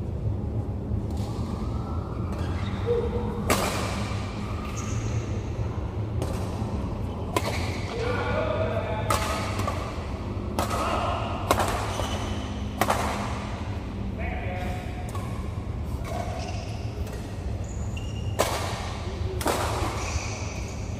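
Badminton rackets striking a shuttlecock in a fast doubles rally: a string of sharp smacks, roughly one a second, ringing in a large hall.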